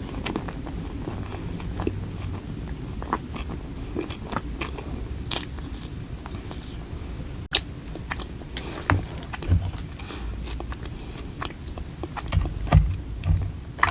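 Close-miked eating: a person biting and chewing food, with scattered small clicks and crunches from the mouth. There is a brief dropout about halfway through.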